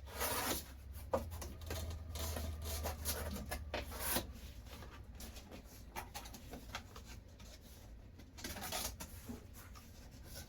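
Cardboard box and its packaging being handled, with irregular rustling and scraping as the box is opened and its contents pulled out. The handling is busiest in the first few seconds, with another flurry near the end.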